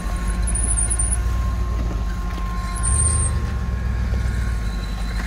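Rock-crawler buggy's engine running at low crawling speed as the buggy climbs over boulders, with a short rise in engine level about three seconds in. Two brief high whines sound over it, about half a second and three seconds in.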